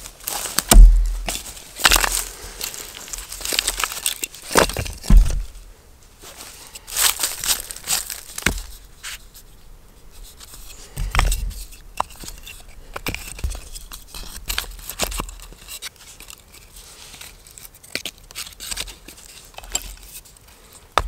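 Split wooden blocks and wedges handled and set against each other on a rotten stump, with irregular wooden knocks, scraping, and rustling of dry leaf litter and wood chips. The loudest knocks come about a second in and around five seconds.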